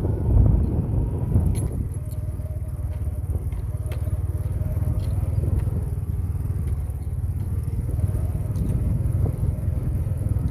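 Vehicle running along a bumpy dirt track through fields: a steady engine and road rumble, with a few sharp rattles as it jolts over the rough ground.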